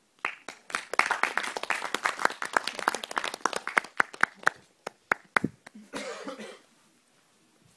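A small audience applauding: many hands clapping, thinning out to a few last claps about five seconds in, followed by a short noisy burst about six seconds in.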